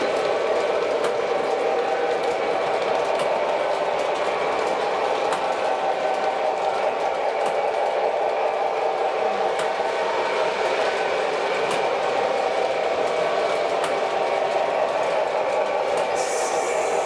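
O scale model trains running on the layout: a steady motor hum with light clicks about once a second.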